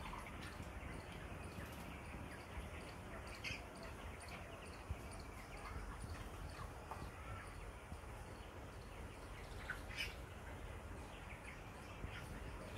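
Flock of broiler chickens, about 24 days old, giving faint scattered short chirps and cheeps over a steady low rumble. One brighter call comes about ten seconds in.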